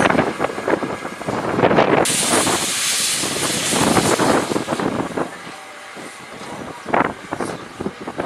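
Small superheated 0-4-0T tank steam locomotive working slowly away, with spaced exhaust chuffs. About two seconds in, a loud hiss of steam from the open cylinder drain cocks starts suddenly and dies down after a few seconds, while the chuffs go on.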